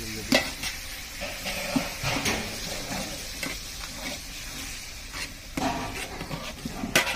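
Steel ladle stirring and scraping chopped tomatoes and onions around a large metal pot, clanking against the pot's side at irregular intervals, the strongest knock about a third of a second in and another near the end. Under it the vegetables sizzle steadily as they fry.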